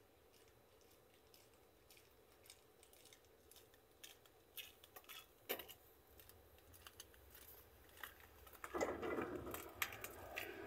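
Faint scattered clicks and ticks over a quiet background. About nine seconds in, a louder, steady rumbling noise sets in.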